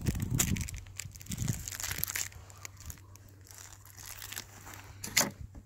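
Crinkling and rustling of material being handled, with scattered sharp clicks, loudest in the first two seconds, over a steady low hum.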